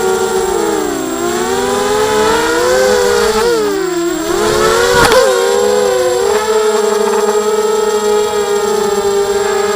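Motors and propellers of a ZMR racing quadcopter whining, several tones sliding down and up together as the throttle changes. The pitch dips about four seconds in, rises again with a sharp click about five seconds in, then settles to a steadier whine.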